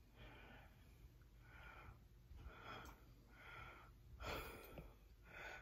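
Near silence with faint breathing, soft hisses recurring about once a second.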